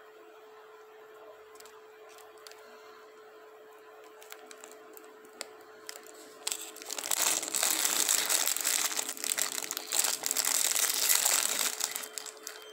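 A faint steady hum with a few soft clicks, then about six and a half seconds in a loud, dense crinkling starts and goes on for about five seconds before fading.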